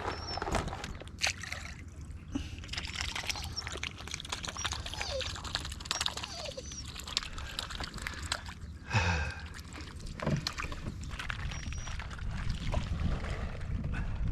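Water sloshing and splashing, with irregular small clicks and knocks and one louder knock about nine seconds in.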